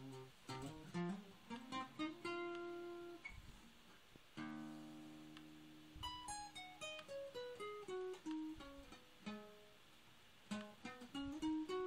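Solo acoustic guitar playing, mostly single plucked notes, with a chord left ringing about four seconds in and a descending run of notes after it.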